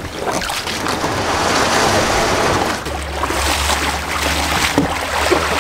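Boots wading and splashing through shallow river water at the muddy bank. A low steady rumble comes in about three seconds in.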